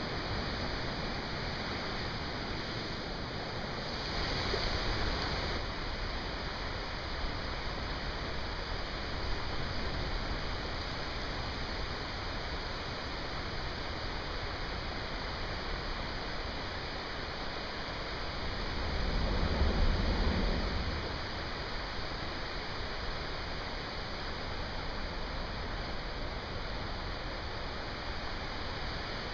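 Heavy seas rushing and breaking against a rocky shore: a steady rush of water, with a louder, deeper surge about two-thirds of the way through.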